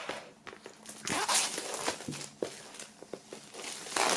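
Clear plastic shrink wrap being pulled and peeled off a vinyl LP sleeve after being slit open, crinkling and tearing in short rustling bursts. The loudest bursts come about a second in and again near the end.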